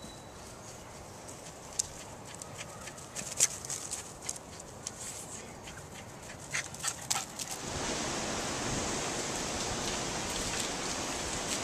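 A small dog playing on a lawn, with faint dog sounds and scattered short ticks. About two-thirds of the way in, this gives way to a steady rushing noise of wind through trees.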